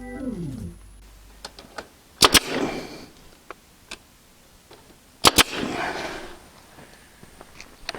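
The last notes of a music track slide down in pitch and end within the first second. Then come two sharp, loud double snaps about three seconds apart, each a pair of quick strikes with a short rattle after, and a few light clicks in between.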